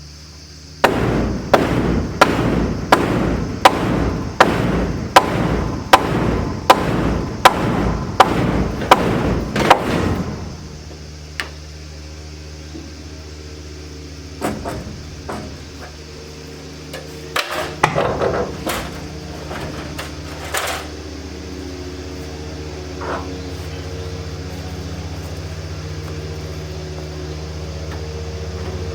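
Hammer pounding on a nailed wooden board, about two blows a second for some ten seconds: beating a misplaced board off the rack to pull its nails. After that come a few scattered knocks, with a steady low hum throughout.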